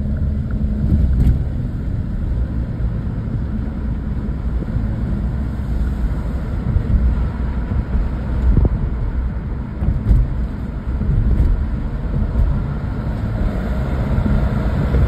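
Steady road and engine rumble of a car being driven, heard from inside the car.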